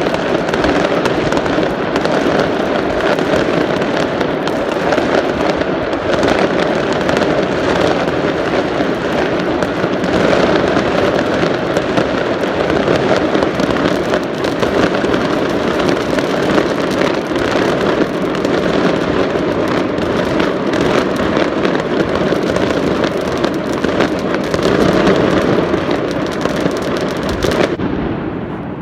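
Many fireworks going off at once in a dense, continuous barrage of overlapping bangs and crackling, with the sharp crackle thinning out near the end.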